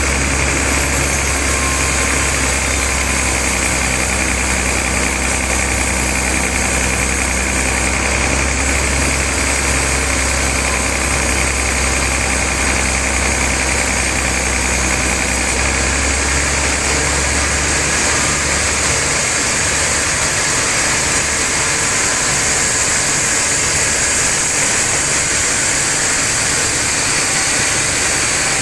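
Sawmill machinery running steadily, with a deep low hum underneath that drops away about two-thirds of the way through.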